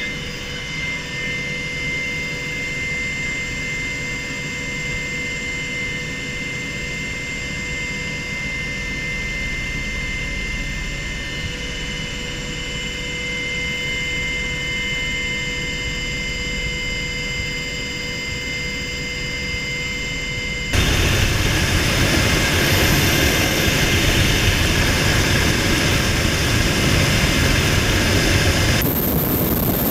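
Cabin noise inside an AW101 Merlin rescue helicopter in flight: a steady drone with several high gearbox whine tones. About 20 seconds in it jumps suddenly louder to a broad, rough rush of rotor and wind noise.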